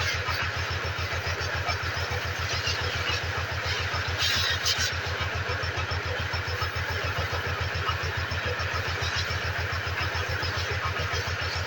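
Motorcycle engine idling steadily, an even low pulsing beat of several firings a second, with a brief hiss about four seconds in.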